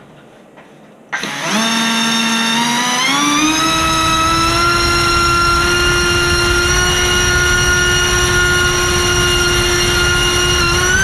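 Brushless drone motor (LDpower 2305 2600kv) on a thrust stand spinning a Racecraft 5040 four-blade propeller on 5S: it starts suddenly about a second in, climbs in pitch over the next two seconds, then holds a steady high whine over the rush of the prop wash, starting to rise again at the very end. The tester finds this run too much kV for 5S, overheating the motor and ESC.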